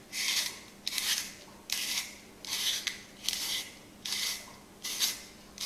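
Zucchini being twisted through a handheld Vege-Magic spiral slicer, its steel blade shaving the vegetable into a spiral ribbon with a rasping scrape on each turn. About seven strokes in a row, one every 0.8 seconds or so.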